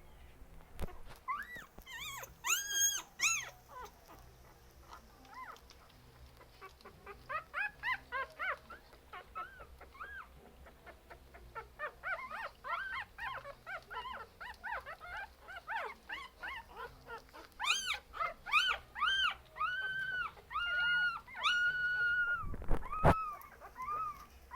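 Young puppies whining and yelping in runs of short, high-pitched cries, the crying of hungry puppies. A single dull knock near the end.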